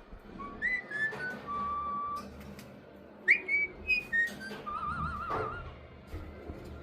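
Pet parrot whistling: a few short whistled notes, then a held steady whistle, a loud sharp rising chirp about three seconds in, and a warbling, wavering whistle near five seconds.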